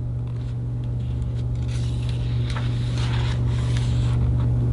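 Steady low hum, with faint paper rustling and small clicks over the last three seconds: a picture-book page being turned.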